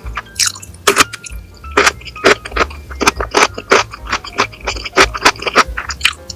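Background music with a steady bass line, over a dozen or so sharp crunches and clicks of eating up close.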